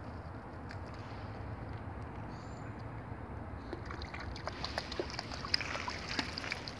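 Small dog stepping down into shallow pond water at the edge, with light splashes and sloshes beginning a little under halfway in, over a steady low background noise.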